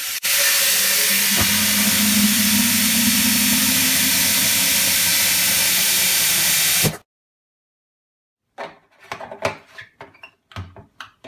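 Tap water running hard into a humidifier's plastic water tank, then shut off suddenly about seven seconds in. A few light plastic knocks and clicks follow near the end as the tank is handled.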